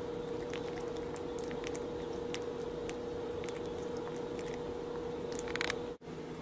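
Soft scattered clicks and smacks from a sleeping newborn puppy's mouth, coming thicker just before the end, over a steady low hum. The sound breaks off for an instant near the end.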